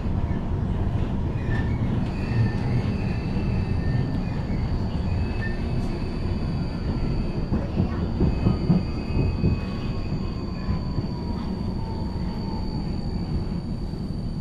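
Vienna tram running along its track, heard from inside the passenger car: a steady low rumble of wheels on rails. About two seconds in, a thin, steady high-pitched whine sets in and holds on.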